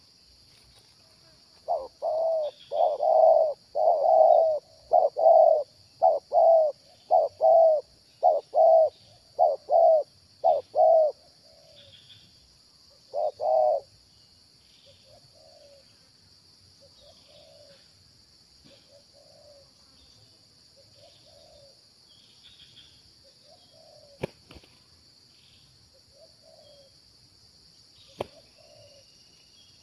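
Spotted doves cooing: a loud run of about a dozen deep coo notes through the first half, then softer coos repeating at intervals.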